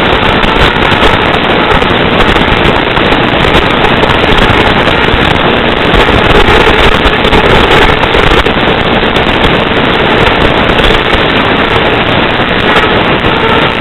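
Loud, steady crackling hiss of radio static on an analog FPV video downlink's audio channel, with no engine or propeller tone coming through.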